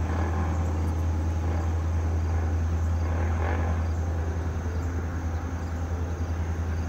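Diesel locomotives of an approaching freight train, a steady low rumble as the train comes on.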